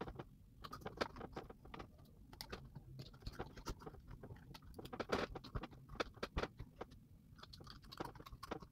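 Spoon stirring and scraping through a thick brown sugar and coconut oil paste in a glass jar: a run of irregular quick scrapes and clicks.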